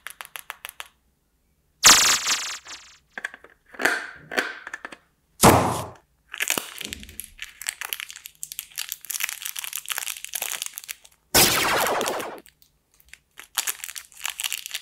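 Plastic and foil candy wrappers crinkling and crackling as they are unwrapped and torn open by hand, with dense crackling broken by a few louder rips.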